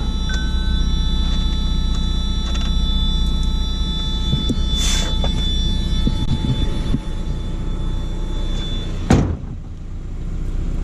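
A steady low rumble with a thin high whine. A short whoosh comes about five seconds in, then a sharp thump near the end, after which the rumble quietens and the whine stops.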